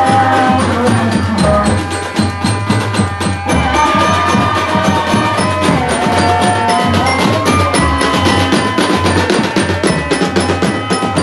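Marching drum band playing: dense, rhythmic drumming on bass and marching drums under a melody line, loud and continuous.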